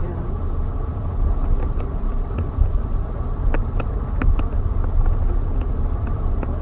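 Steady low rumble of road and engine noise inside a minivan's cabin, with a few faint clicks scattered through it.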